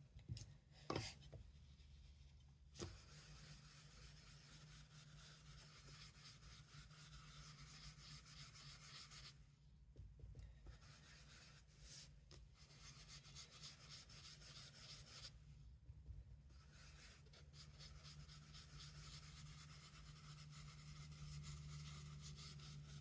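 Faint rubbing of a watercolor blending brush working ink onto the edge of watercolor cardstock, in continuous strokes that pause briefly twice, over a low steady hum. A couple of light taps come in the first few seconds.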